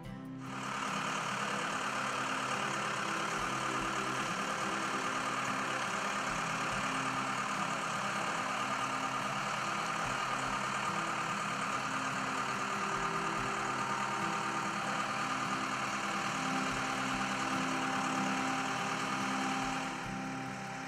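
Diesel engine of a Case 580SM loader backhoe running steadily, starting about half a second in and dropping off near the end.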